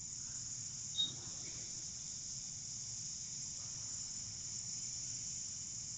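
Quick 861DW hot air rework station blowing steadily, a faint high hiss of air, as its nozzle is brought in over the Tristar charging chip to reflow it. A single short high beep sounds about a second in.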